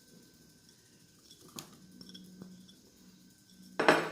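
Chopped red onion being handled into a glass bowl: faint crunchy, moist rustles and a few light clicks, then a loud clatter near the end.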